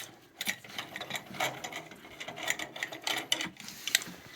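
Quick, irregular metallic clicks and rattles of plumbing hardware being handled.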